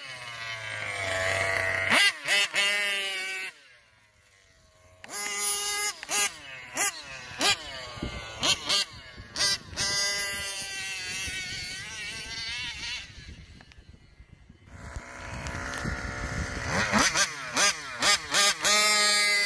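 Small two-stroke engines of 1/5-scale gas RC cars revving up and down in repeated throttle blips, dropping away twice, with a quick run of short blips near the end.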